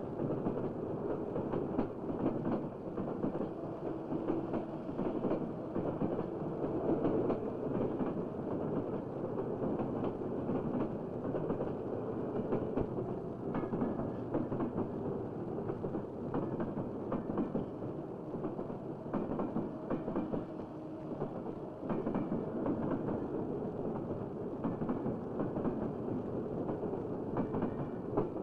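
A train running on rails: a continuous rattling noise threaded with many small clicks.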